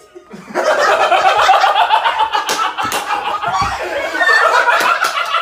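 People laughing loudly and hard, with a few sharp smacks about halfway through.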